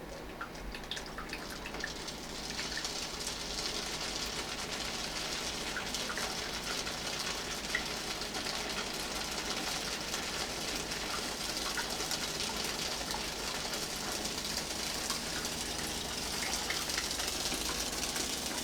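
Drip coffee maker running, its heated water pouring down over a tea bag: a steady hiss of falling water that builds over the first few seconds, with small scattered clicks.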